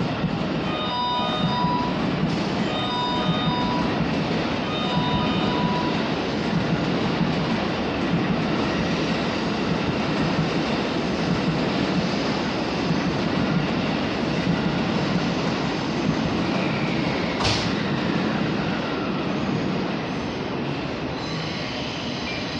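A JR electric train running alongside the station platform with a steady rumble of wheels and running gear. A short electronic chime repeats three times in the first six seconds. About seventeen seconds in there is a brief sharp hiss, followed by a faint falling whine.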